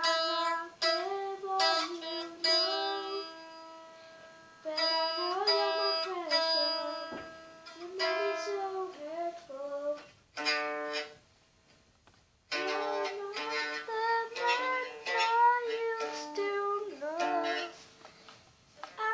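Guitar played note by note in an improvised melody, with slides and bends between notes and plucked notes left to ring and fade. There are two short pauses past the middle.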